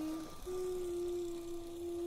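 Lego remote-control train's small electric motor whining steadily as the train runs around the track, a thin tone that shifts slightly in pitch.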